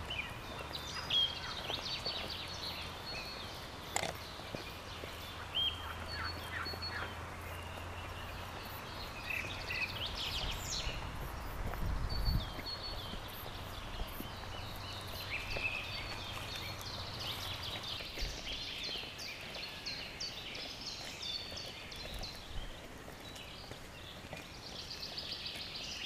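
Several small birds chirping and whistling in short phrases, with footsteps on a dirt path and a low thump about twelve seconds in.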